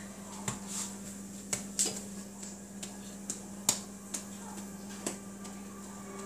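Scattered faint clicks and taps, about ten at irregular intervals, as pizza dough is handled and rounded into a ball by hand, over a steady low hum.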